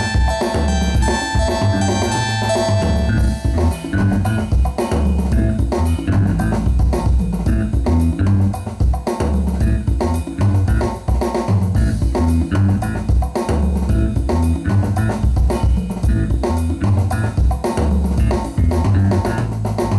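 Band music with a drum kit keeping a steady beat over bass and guitar, without singing.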